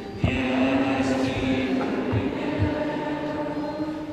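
Slow worship chant sung into a microphone, with long held notes that break briefly just after the start and again at the end.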